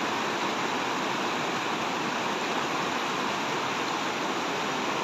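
Steady rush of a mountain river's rapids pouring over rocks.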